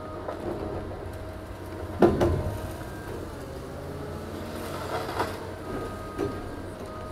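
Liebherr 944 long-reach demolition excavator running steadily while its hydraulic jaw breaks concrete. There is one loud crack about two seconds in and smaller knocks around five and six seconds as chunks break off.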